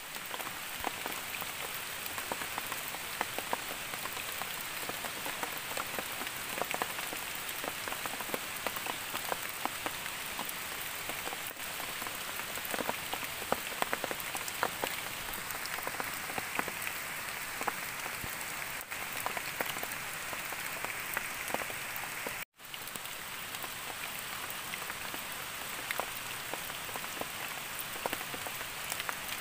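Rain falling on forest leaves and leaf litter: a steady hiss made of many small patters of drops, with a faint steady high tone above it. The sound cuts out for an instant about two-thirds of the way through.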